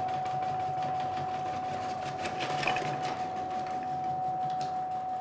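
Electric motor of an 1100-watt fruit and melon cutter running with a steady high whine over a low hum, while potatoes are pressed down through its dicing blade.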